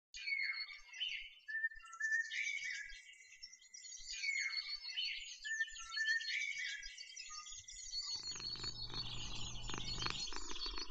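Birdsong sound effect: small birds chirping and twittering in high, quick calls, the same phrases coming round again about every four seconds, as from a loop. About eight seconds in, a low hum and a steady noise join underneath.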